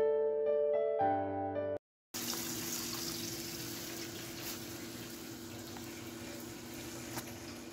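Soft piano music that cuts out about two seconds in. Then a pot of kidney beans in seasoned tomato liquid boiling with a steady bubbling hiss over a low steady hum, and a couple of faint clicks from the metal stirring spoon.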